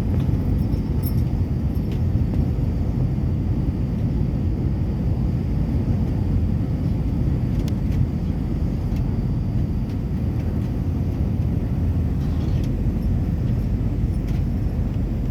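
Steady low rumble of an airliner's cabin in flight on descent: engine and airflow noise heard from a passenger seat, with a few faint clicks.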